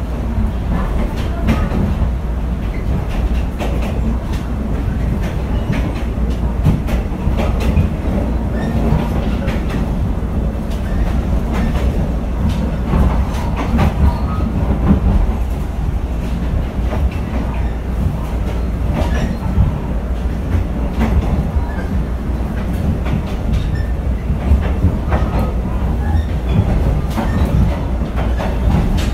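Passenger train coach in motion, heard from inside: a steady low rumble from the wheels on the track, with irregular clacks and knocks as the wheels pass over rail joints.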